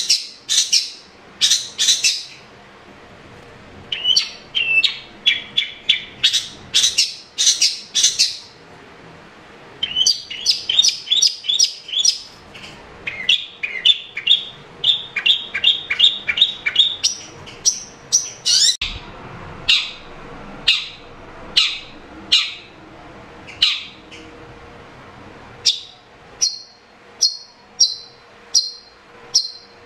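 Long-tailed shrike (cendet) calling loudly in quick runs of short, sharp, high chirps with brief pauses between runs. Near the end it settles into an even series of falling notes, about one and a half a second.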